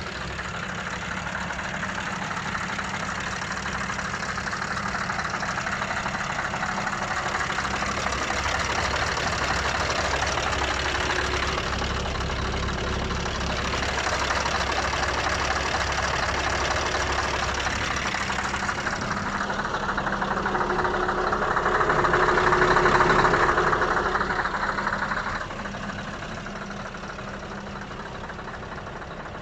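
Scania R500 V8 diesel truck engine idling steadily. It grows louder about two-thirds of the way through, then drops back near the end.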